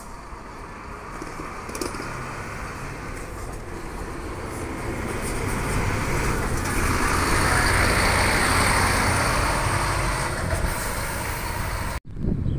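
Intercity coach's engine running as it pulls out and drives past close by, the sound swelling to a peak about eight seconds in and then easing off. The sound cuts off abruptly near the end.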